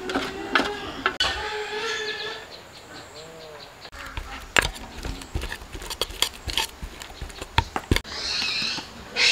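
A metal spoon clinking and scraping against a stainless steel pot while grated taro is mixed, with sharp irregular knocks from about four seconds in. Near the end comes a soft hiss of flour pouring from a bag into the pot. Calls sound in the background during the first couple of seconds.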